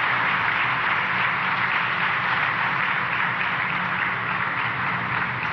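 Audience applauding steadily, tapering off a little near the end.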